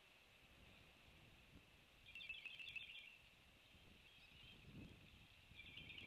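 Faint outdoor ambience: a steady thin high-pitched drone, with short bursts of chirping about two seconds in, faintly around four seconds, and again near the end. There is a soft low rumble just before five seconds.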